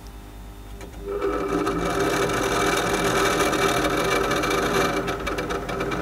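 Refrigerator condenser fan motor beside the compressor starting up about a second in, then running with a loud, rapid rattling buzz. This is the sign of a faulty fan motor, made to sound this way as the fridge cycles back on.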